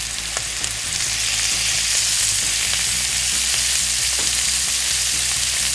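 Sheepshead fillet frying in butter with green onion and capers in a skillet: a steady sizzle that grows a little louder about a second in.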